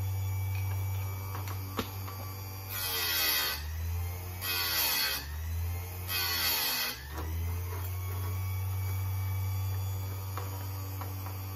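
Chicago Electric electric chain sharpener's grinding wheel motor running with a steady hum. The wheel is brought down onto a chainsaw chain's cutter tooth three times, each a hissing grind of about a second, with the hum dropping in pitch under each grind.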